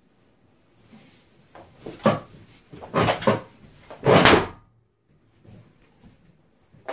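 Large latex balloons being sat on and squashed, giving a run of rubbing knocks and thumps from about two seconds in. The run builds to one loud pop-like burst a little after four seconds, as a balloon is sit-popped.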